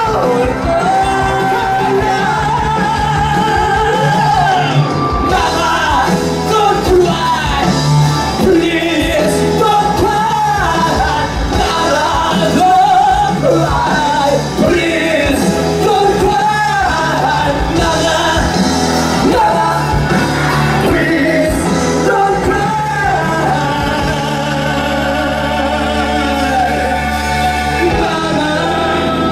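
Male voice belting a musical-theatre song through a microphone, with shouted, held high notes over continuous instrumental accompaniment, amplified in a large hall.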